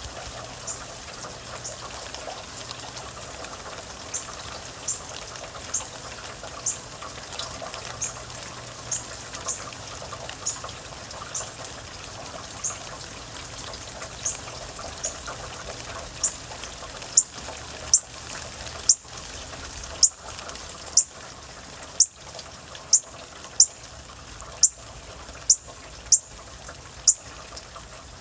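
Steady rain with trickling, dripping water, and a bird giving a long series of sharp, very high chip notes about once a second, growing much louder about halfway through.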